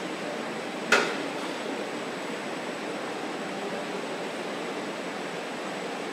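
Steady hiss of car-factory hall ambience, with a single sharp knock about a second in.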